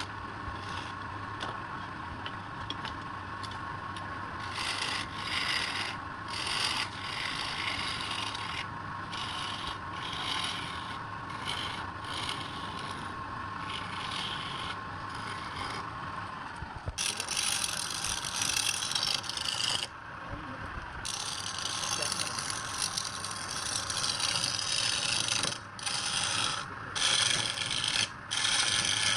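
Wood lathe running with a steady hum, while a tool is worked against the spinning wood in repeated rasping strokes, roughly one a second. From a little past halfway the rasping becomes louder and nearly continuous.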